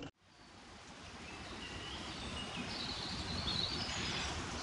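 Outdoor ambience: a steady rushing background that fades in over the first second or two, with a few small birds chirping from about two seconds in.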